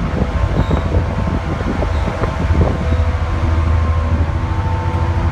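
Ferry's engines running underway: a steady low drone with a machinery hum over it, and a few light rattles in the first half.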